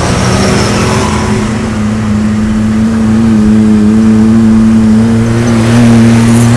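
Side-by-side UTV engine running steadily while driving on a gravel road, a constant drone whose pitch creeps up slightly in the second half.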